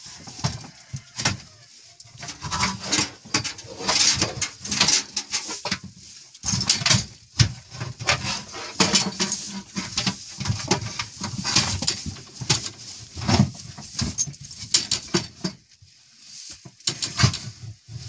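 Calves and a cow moving and feeding in a barn stall: a run of irregular knocks, rustles and clatters, with a brief lull near the end.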